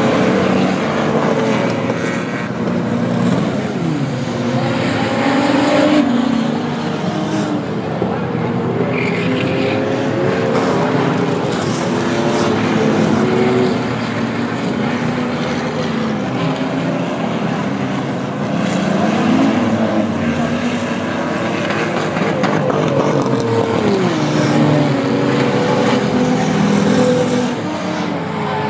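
Several V6 enduro race cars running around a short oval, their engine notes overlapping and rising and falling in pitch as they accelerate and back off.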